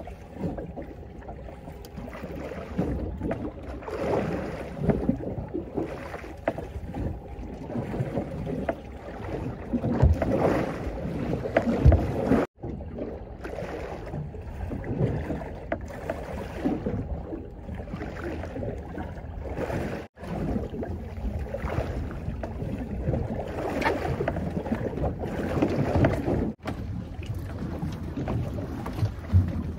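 Wind buffeting the microphone and choppy water slapping against the hull of a small drifting boat, rising and falling unevenly, with three brief dropouts where the footage is cut.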